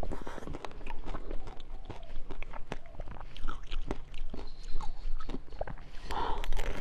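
Close-miked eating: bites and chewing with many sharp crackling clicks, and a louder, denser crunch near the end.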